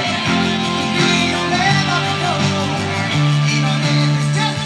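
Background music: a song with guitar and singing.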